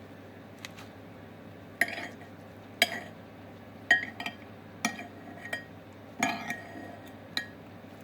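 Utensils clinking against a salad bowl as the dressed salad is tossed: a series of sharp clinks, about one a second, each with a short ring.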